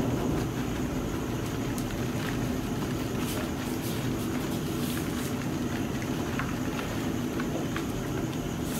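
Steady low rumbling background noise, with a few faint crinkles and ticks from a plastic packet being tipped and handled over a plastic bowl.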